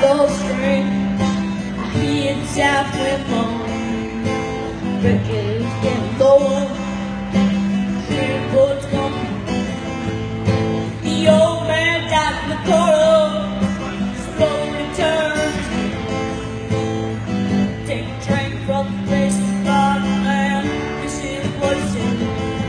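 Live music: an acoustic guitar strumming the accompaniment under a wavering lead melody line.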